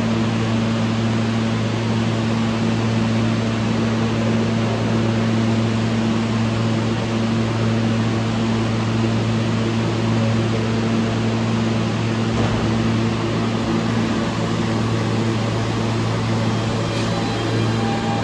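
Steady hum and even rushing noise of a subway station platform: a low mechanical hum that holds steady under a constant hiss, with no train moving.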